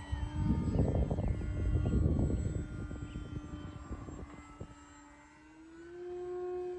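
Electric motor and propeller of an E-flite Maule 1.5 m RC plane flying overhead, a steady buzzing drone whose pitch rises a little and grows louder near the end. A loud low rumble covers it through the first few seconds.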